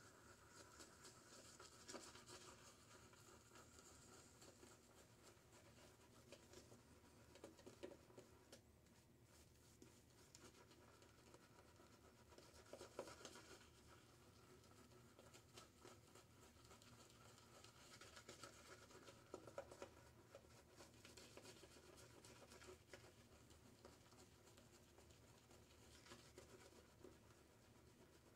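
Faint, soft scratching of a boar-bristle shaving brush swirling lather over a bearded face, irregular, with a few slightly louder strokes.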